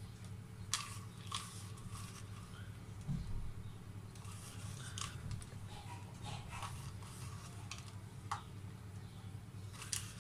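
Fingers pinching chopped nuts from a small bowl and sprinkling them onto ice-cream mix in a silicone popsicle mould: scattered light crunches and ticks, with a soft thump about three seconds in, over a steady low hum.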